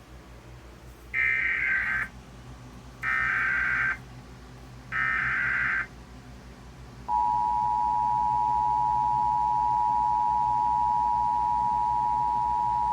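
Emergency Alert System SAME header: three short bursts of warbling digital data, each just under a second long and about a second apart. About seven seconds in, the steady two-tone EAS attention signal starts and holds, marking the start of an emergency alert broadcast.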